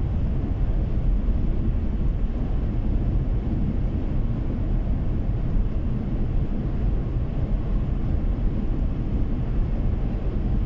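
Steady low rumble of a car's road and engine noise heard from inside the cabin while cruising at highway speed.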